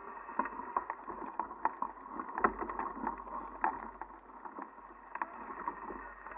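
Footsteps crunching irregularly on a dry, stony dirt trail, with sharp clicks and scuffs over a low rumble of wind on the microphone.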